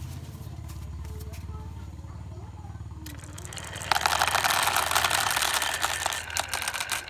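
Glass marbles rolling down grooved wooden zigzag slopes and clattering into plastic toy-truck beds, a dense rattle of clicks that starts about three seconds in, grows loud a second later and eases near the end. Before it, a low steady hum.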